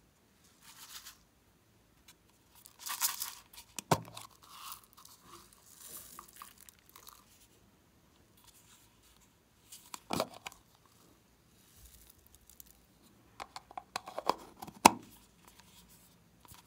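Handling noises from small plastic slime containers over a glass tray of foam beads: short rustling scrapes and scattered plastic clicks and knocks, the sharpest about 4, 10 and 15 seconds in.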